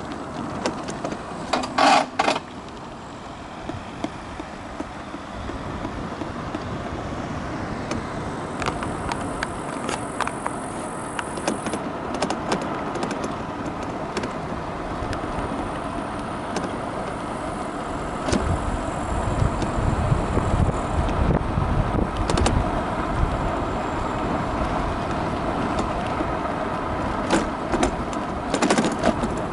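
Riding noise from an electric scooter on an asphalt cycle path: steady tyre and wind noise with light rattling of the scooter's parts, and traffic on the highway alongside. A brief loud clatter about two seconds in, and wind buffeting the microphone for a few seconds around two-thirds of the way through.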